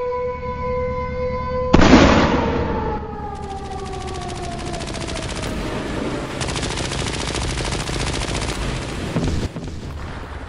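Battle sound effects: an air-raid siren holds a steady wail, then a loud blast about two seconds in. After the blast the siren winds down in pitch while rapid machine-gun fire runs until near the end.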